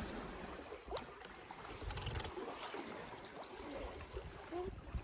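Water rushing along the hull of a San Juan 21 sailboat running downwind under sail, with a brief loud hiss about two seconds in.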